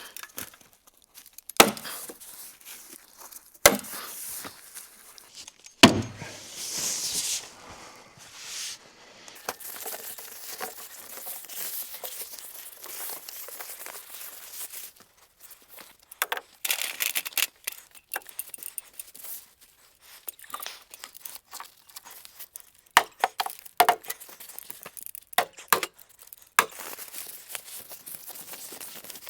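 Synthetic house wrap rustling and crinkling as it is unrolled and handled against a wall, with a few sharp knocks in the first few seconds and a run of irregular clicks and taps in the second half.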